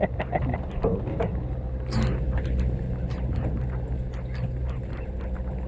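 Boat engine running steadily, a low drone, with scattered light ticks and knocks over it.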